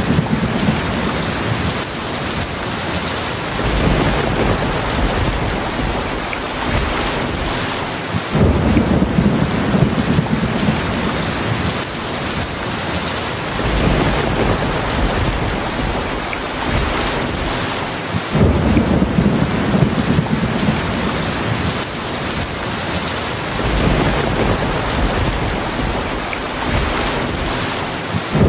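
Heavy rain falling steadily, with low rolls of thunder swelling in about every five seconds.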